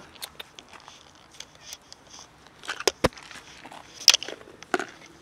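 Clicks and knocks of a plastic food container being handled and set down on gravel, with scuffing of grit; the loudest knocks come about three seconds in and again about a second later.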